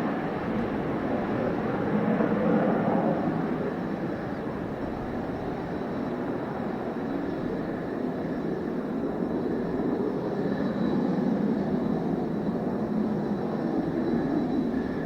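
Mitsubishi F-2 fighter's jet engine running steadily, a rushing roar with a faint high whine over it.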